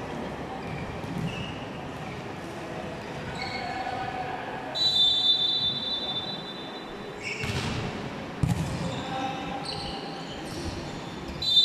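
Volleyball rally echoing in a large sports hall. A referee's whistle blows about five seconds in and fades, a couple of sharp hits on the ball follow around the middle, and another whistle sounds near the end, over players' shouts and crowd chatter.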